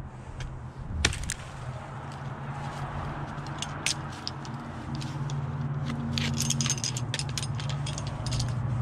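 Ice axes being set into waterfall ice with sharp knocks about a second in and near four seconds, then a run of metallic clinks from the carabiners clipped to the tools, over a steady low hum.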